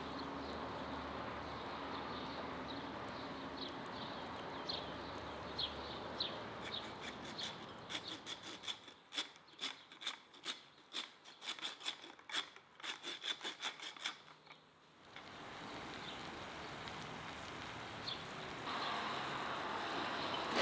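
Food sizzling in a hot steel sadj pan over a wood fire: a steady hiss with faint ticks. In the middle comes a run of sharp, irregular crackles for several seconds.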